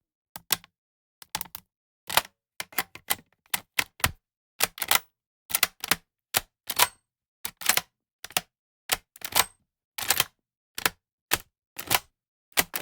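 Firearm action worked by hand, close up: a run of sharp metal clicks and clacks, often in quick pairs, about two a second with silence between.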